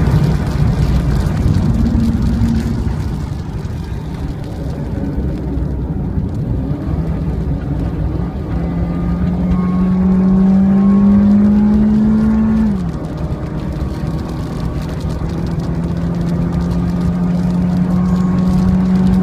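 Time-attack car's engine running hard on a lap, its note climbing slowly through a gear, dropping sharply at an upshift about thirteen seconds in, then climbing again, over steady road and wind noise.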